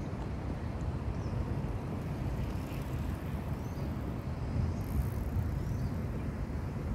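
Outdoor ambience: a steady low rumble with a few faint, short high chirps now and then.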